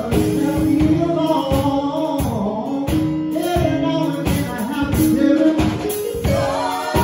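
A gospel song playing: a sung melody over instrumental backing with a steady beat.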